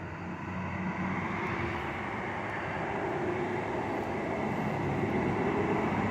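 A vehicle's steady engine rumble that slowly grows louder.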